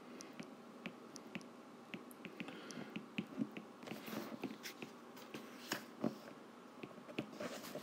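Stylus tapping and sliding on a tablet's glass screen during handwriting: faint, irregular sharp clicks, a few a second, with soft scratching between them that grows busier about halfway through.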